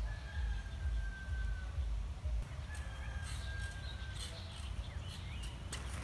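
A bird gives two long, steady whistled notes, the second about a second after the first ends, over a low rumble. Light clicks and crackles come in during the second half.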